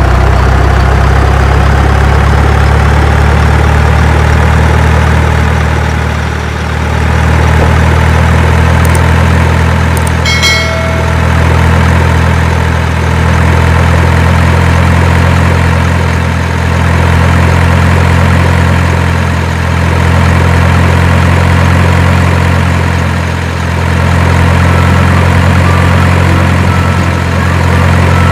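Heavy truck engine idling steadily, loud and low, swelling and easing evenly every few seconds like a looped recording. A short high tone sounds once about ten seconds in.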